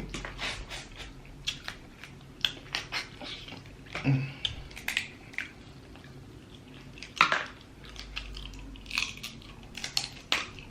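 Close-miked eating of snow crab legs: irregular crackles and clicks of shell being worked open, mixed with chewing and mouth sounds, with a louder sharp crack about seven seconds in.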